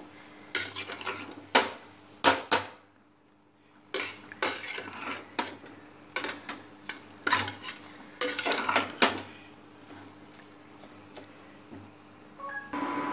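Metal spoon stirring cooked biryani rice in a pressure cooker pot, with irregular clinks and scrapes of spoon against the pot's metal rim and sides. A short pause about three seconds in; the clinks grow sparser and quieter near the end.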